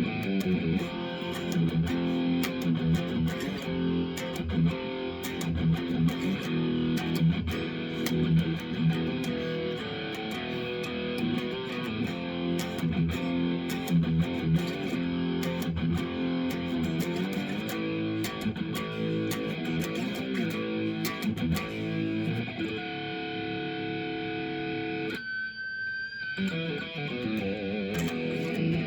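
2005 Epiphone Les Paul Custom electric guitar played through a Marshall Code 25 amp: chords and note runs, then near the end a held note, a short break and the playing picks up again.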